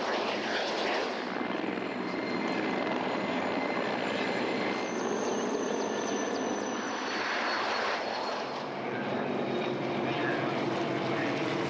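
Military aircraft flying past: a jet engine's rush, then helicopter rotors, with a propeller engine's steady drone in the last few seconds.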